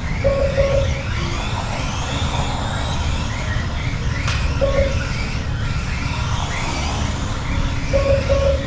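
Kyosho Mini-Z RC trucks racing: their small electric motors whine, rising and falling as they accelerate and slow through the corners, over a steady low rumble. Clusters of short electronic beeps come near the start, midway and near the end.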